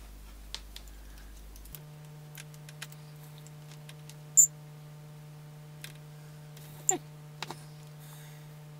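Light clicks and taps of multimeter test probes and leads being handled against a small electrolytic capacitor's legs while its capacitance is measured, the sharpest click about four and a half seconds in. A steady low hum runs underneath from about two seconds in.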